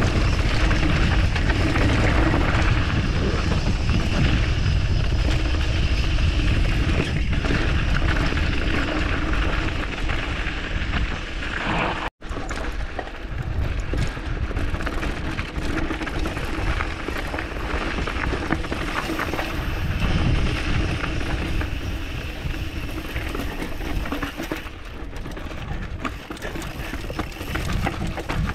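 Mountain bike rolling fast down a dirt trail: steady rumbling wind noise on the microphone mixed with tyre and trail rattle. The sound cuts out for an instant about twelve seconds in.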